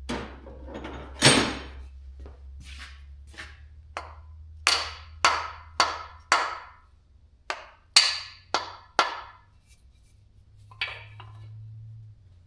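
Hammer blows on stuck parts of a Chevy 350 small-block engine being torn down: about a dozen sharp, irregular knocks with a short metallic ring, tapping at the parts to knock loose ones seized from sitting.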